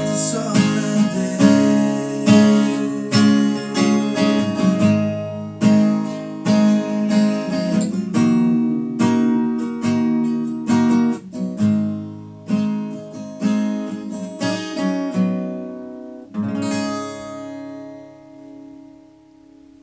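Steel-string acoustic guitar with a capo, strummed and picked through the closing instrumental bars of a song. About sixteen seconds in it strikes a final chord that rings out and fades away.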